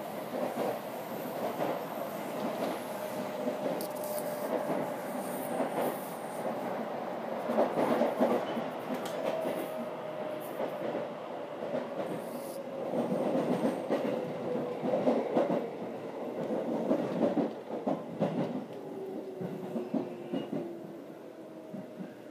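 JR 313-series electric train heard from inside the carriage as it slows for a station stop. The motor whine falls steadily in pitch under braking, with the wheels clattering over rail joints and points in several short spells. It all grows quieter near the end as the train nears a stop.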